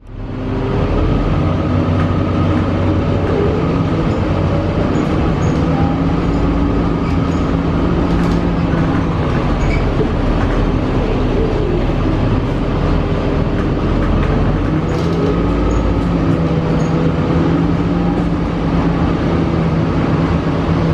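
2006 Gillig low-floor hybrid bus with a Cummins ISB 5.9L diesel and Allison EP40 hybrid drive, under way and heard from inside the passenger cabin. Its drive runs steadily, with several tones that glide up and down as the bus speeds up and slows, and faint light ticks over the top. The sound fades in at the start.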